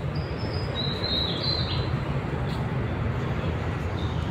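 Steady rumbling vehicle noise, with a few short, high chirps or squeaks in the first two seconds.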